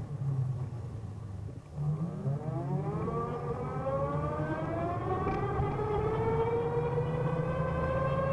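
Vectrix VX-1 electric maxi-scooter's straight-cut reduction gear whining. The whine falls in pitch as the bike slows almost to a stop, then rises steadily as it pulls away and accelerates, levelling off near the end, over a steady low hum.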